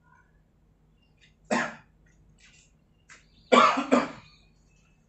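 A man coughing: one short cough about a second and a half in, then two louder coughs in quick succession about three and a half seconds in.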